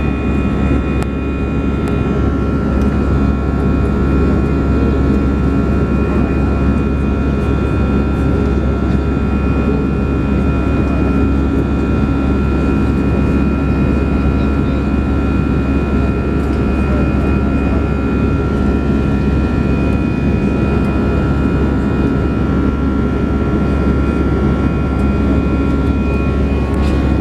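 Airbus A320 cabin noise in the climb after take-off, heard inside the cabin: jet engines running with a steady rush of airflow and a few steady whining tones over a low rumble.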